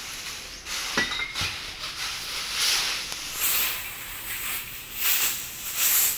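Short broom sweeping concrete and dry leaves in repeated scratchy strokes, with a brief high chirp about a second in.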